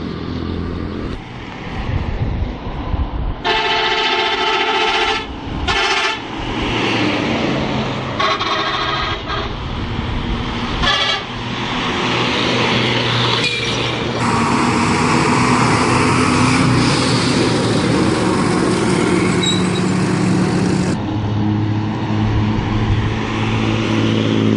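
Hino bus horn blown in four blasts in the first dozen seconds: a long one about three seconds in, a short one, another long one, then a short one. Underneath, the bus's diesel engine idles steadily, and later it runs on louder and steadier.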